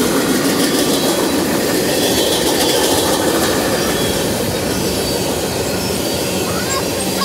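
Freight train's open-top gondola cars rolling past on steel wheels: a steady rumble and rattle over the rails, with faint high wheel squeals now and then.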